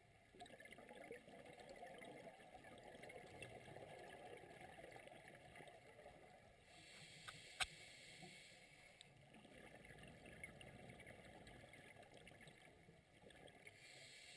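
Faint underwater ambience: a low wash of water noise with scattered faint ticks, a brief swell of hiss about seven seconds in, and one sharp click just after it.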